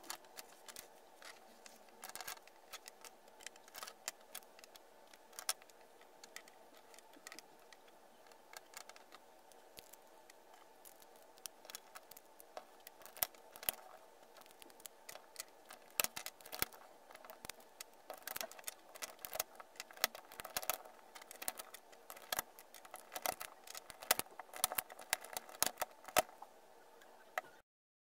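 Irregular clicks and clatter of plastic speed-cube pieces being picked up, set down and snapped together on a wooden table, growing busier midway, over a faint steady hum. It all cuts off suddenly near the end.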